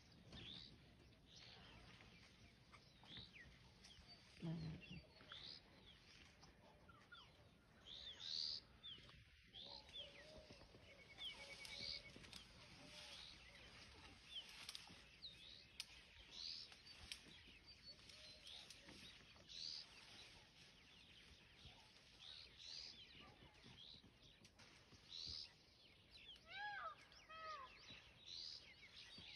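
Faint birdsong: several birds chirping every second or so over a quiet background hiss, with a short run of lower, curving calls near the end.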